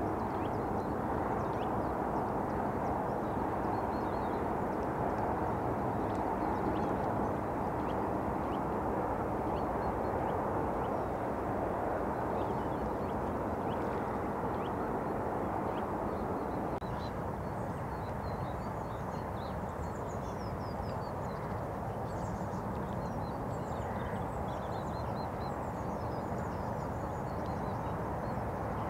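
Steady hum of distant road traffic, with small birds chirping faintly over it, the chirps coming more often in the second half.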